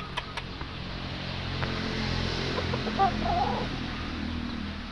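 A gamecock rooster gives a short wavering clucking call about three seconds in, over a steady rushing background noise that swells through the middle. A couple of soft clicks sound near the start.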